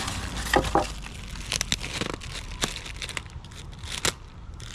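Crinkling and rustling of speaker packaging, with a few sharp clicks and taps scattered through it, as a pair of Kenwood 4x6 car speakers is handled.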